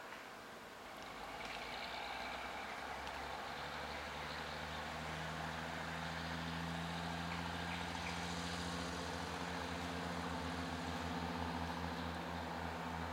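Diesel engine of the NS 20 'Kameel' railcar, a low steady drone that grows louder as the railcar approaches slowly and takes on a throb in the second half.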